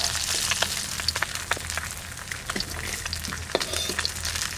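Small fish frying in a little hot oil in a metal wok, sizzling steadily with many small crackles and spits. A metal spatula scrapes and taps against the pan now and then as the fried fish are turned and lifted out.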